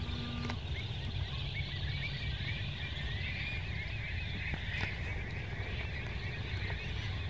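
A large flock of shorebirds calling in flight: a continuous chatter of many short, overlapping chirps, over a steady low rumble.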